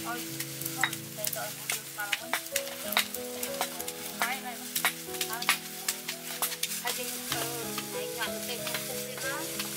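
Food sizzling and crackling with many sharp pops, over slow background music of held chords. Short chirping calls come through the sizzle throughout.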